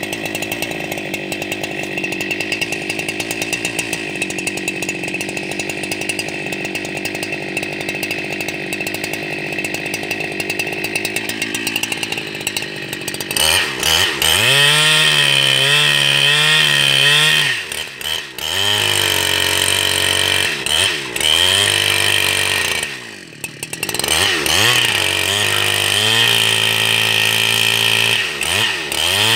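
Two-stroke chainsaw cutting along the length of a log, freehand-ripping it into planks. It runs steadily under load at first, then about halfway through it gets louder and higher, the revs wavering up and down, with two brief dips in revs before it picks up again.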